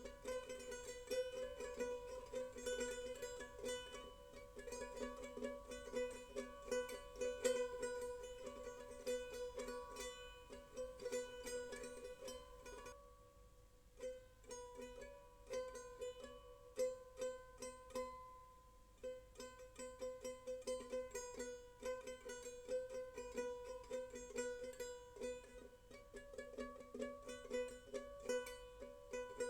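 Background music of plucked string instruments playing a light, quick melody of short picked notes, thinning out for a few seconds midway.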